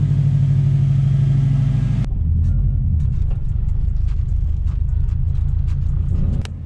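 Subaru WRX STI engine: a steady drone for about two seconds, then the lower rumble of the car being driven, heard from inside the cabin, with light ticks of rain on the windshield.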